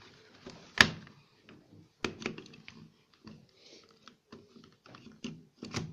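A power plug being pushed into an extension cord's socket: one sharp click about a second in, then lighter clicks and rustling as the cord is handled.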